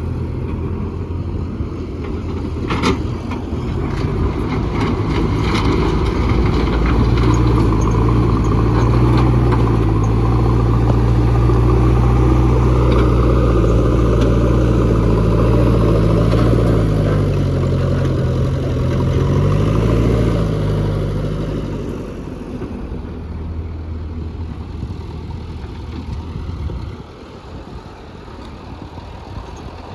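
JCB 3DX backhoe loader's diesel engine running, rising to a louder, heavier working note from about four seconds in, its pitch wavering, then dropping back after about twenty-two seconds and easing further near the end. A sharp knock about three seconds in.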